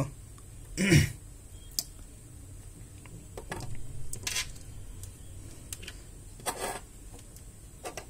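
Scattered faint clicks and rustles of hands handling wires, a small relay module and a screwdriver on a desk, with one louder short sound about a second in.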